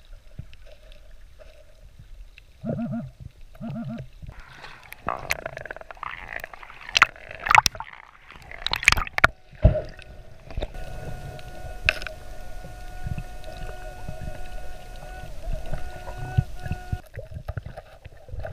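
Underwater sounds of a diver probing and digging in sand. Short paired buzzes come first. Through the middle there is a stretch of rushing noise with sharp clicks and knocks. Then a steady high tone holds for about six seconds over a hiss.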